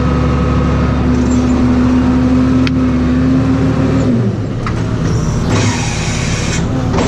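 Tractor engine running at steady revs, heard from inside the cab, with the revs dropping about four seconds in. A brief hiss follows near the end.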